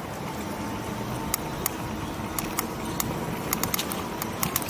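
E-bike riding over pavement: a steady rumble of tyre and road noise with a faint steady whine, broken by irregular sharp rattling clicks that come thicker near the end.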